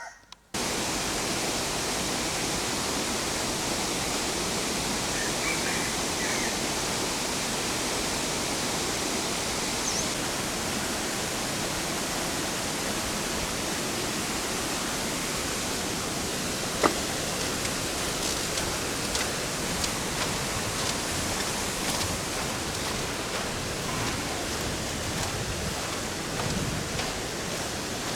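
Steady rushing of a waterfall, starting abruptly about half a second in, with one brief sharp click about two-thirds of the way through.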